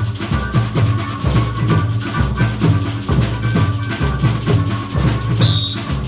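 Samba batucada: surdo bass drums beat a steady pulse about once a second under fast shakers and other hand percussion. A shrill samba whistle (apito) blows briefly near the end.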